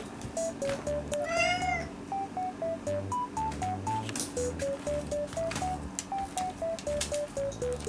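A domestic cat gives one short meow about a second and a half in, its pitch rising and then falling, over light background music with a plinking melody and a steady beat.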